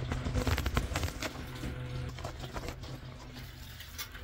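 Aluminium foil crinkling and rustling as foil-covered food trays are handled and opened, as a quick run of crackles mostly in the first couple of seconds, over a low steady hum.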